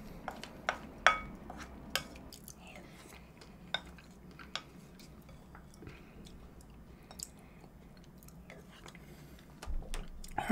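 A wooden spoon clicking and scraping against a ceramic bowl while the last of a melted shaved-ice dessert is scooped up, with close, quiet eating sounds between the clicks. The sharpest click comes about a second in, and a couple of dull knocks come near the end.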